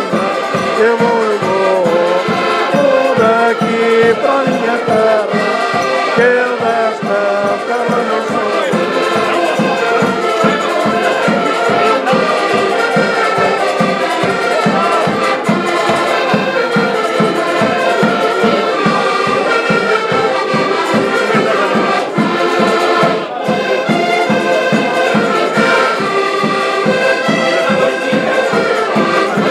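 Portuguese folk band playing a lively tune on several accordions over a steady bass-drum beat.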